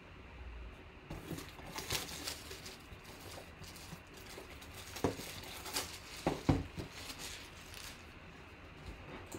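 Plastic shrink wrap crinkling and tearing as it is peeled off a sealed box of trading cards, with rustling and a few sharp taps of the box being handled about five to six seconds in.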